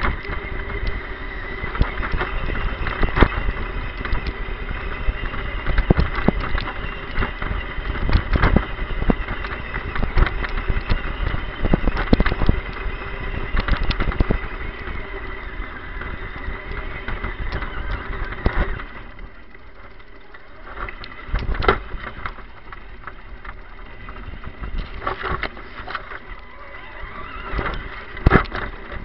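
Onboard sound of an electric RC truck driving through long grass: a steady whine from its motor and gears, with frequent knocks and rattles as the chassis bounces over the ground. It eases off and goes quieter for a few seconds about two-thirds of the way through, then picks up again.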